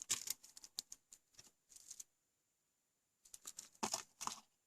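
Quick clicking and rustling of small plastic parts being handled: cable ties and crimp terminals from a wire stripper's storage case. It comes in two bursts, the second starting about three seconds in.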